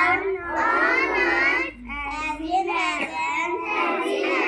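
Young children singing a prayer together in phrases of a second or so, with short breaths between.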